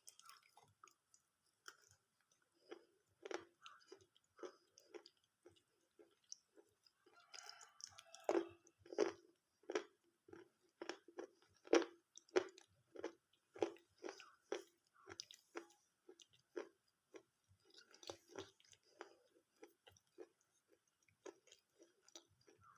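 Chewing on water-soaked slate pencil pieces: faint, soft crunches at about two bites a second, loudest in the middle.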